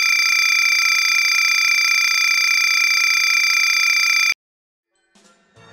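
A loud, steady electronic tone holding one pitch, buzzer-like, that cuts off suddenly about four seconds in. After a moment of silence, music begins faintly near the end.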